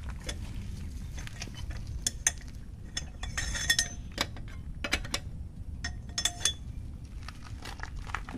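Scattered light metal clinks and taps from a lug nut being handled on a car wheel's stud and a long lug wrench being fitted onto the nut, over a low steady background rumble.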